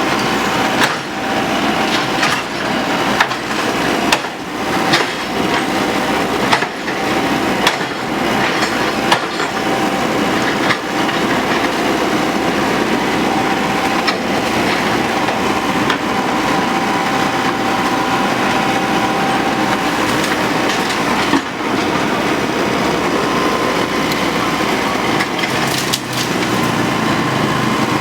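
Excavator running as its bucket breaks and drags bamboo stalks: repeated cracking and splintering of bamboo over the machine's steady noise, the cracks thinning out in the second half.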